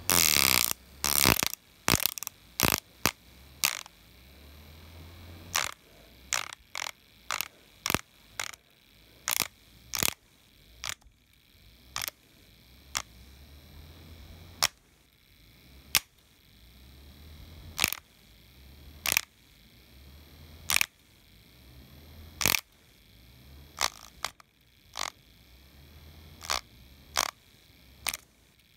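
Light-up toy helicopter spinning: a string of sharp clicks, close together for the first few seconds and then about one every second, over a faint low hum.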